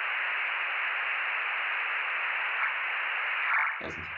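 VHF amateur-radio receiver hiss from a recorded meteor-scatter reception. About three and a half seconds in, a short louder burst of FSK441 tones breaks through: a brief meteor reflection.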